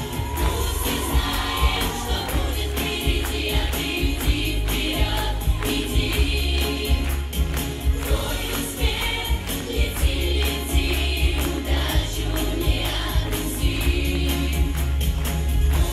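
Children's vocal ensemble singing a pop anthem together into microphones over an amplified backing track with a steady beat.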